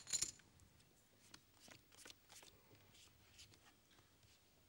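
Near silence with faint, scattered clicks of poker chips and cards being handled, a few louder clicks right at the start.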